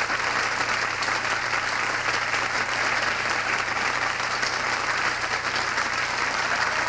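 Studio audience applauding: sustained, steady clapping from many people welcoming the star guest.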